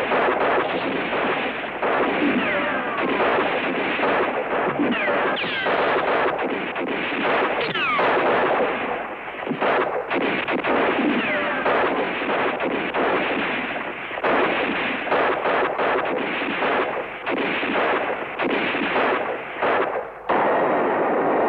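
Sustained rifle and machine-gun fire of a staged firefight, dense shots overlapping with a few falling whines in the first half. About 20 seconds in it breaks off and music comes in.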